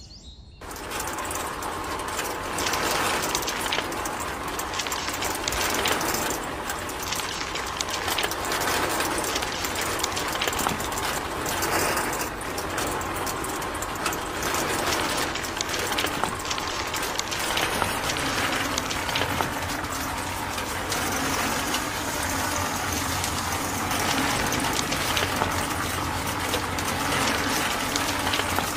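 Small electric motor of a miniature model sand crusher and sifter switched on and running, with a steady mechanical rattle and sand and grit pouring through its shaking sieve. It starts about half a second in.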